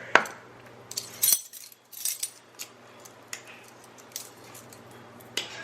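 Scattered light metallic clinks and clicks of measuring spoons and spice containers while spices are measured out, the sharpest about a second in and near two seconds.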